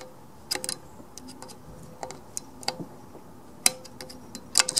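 Irregular small metallic clicks and scrapes of a screwdriver tip picking at the valve springs and caked gunk inside a Briggs & Stratton engine's valve chamber, working loose a sticking valve. A few of the taps ring briefly.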